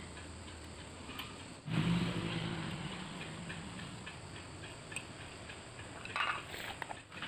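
Small metal clicks and taps of bolts, washers and a nut being handled and fitted on a scooter's CVT variator. About two seconds in, a louder engine hum comes in and fades over the next couple of seconds, and near the end there is a quick cluster of metallic clicks.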